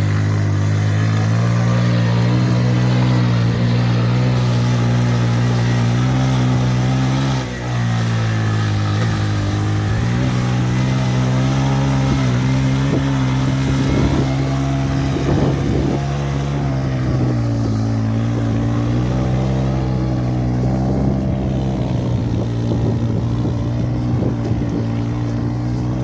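Bajaj Pulsar 150 motorcycle's single-cylinder engine running under way, its pitch steady for stretches and dipping briefly about seven seconds in and again around sixteen to eighteen seconds as the throttle eases and picks up.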